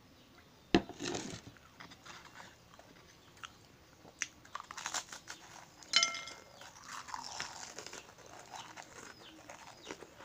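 Crunching and chewing of Marie biscuits: crisp bites and mouth noises, then steady chewing in the second half. A sharp knock comes about a second in, and a brief ringing clink near the middle.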